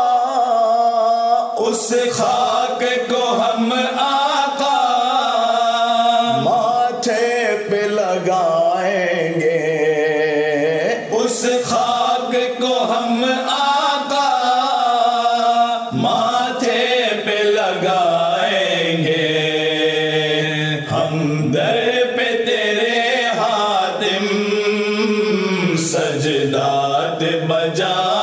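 A group of male reciters chanting a Dawoodi Bohra ilteja in Urdu, drawing out long sung lines that glide up and down in pitch.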